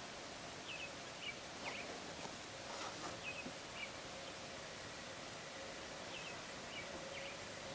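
Faint outdoor ambience with short, high, paired chirps of small birds every second or so and a faint steady hum underneath.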